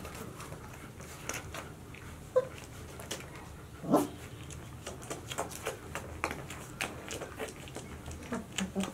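A litter of 26-day-old White Swiss Shepherd puppies nursing: scattered small clicks and smacks, with a short puppy squeal about four seconds in and faint whimpers starting near the end.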